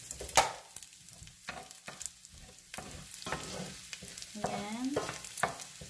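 Bacon pieces sizzling in their rendered fat in a stainless steel pot, with the hob just switched off, while a wooden spoon stirs them, scraping and knocking against the pot. One sharp knock comes about half a second in.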